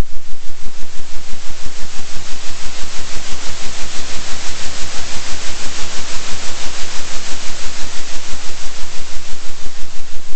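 Electronically generated noise over a steady deep hum, swelling and fading evenly about three times a second: a 3 Hz oscillating sound track.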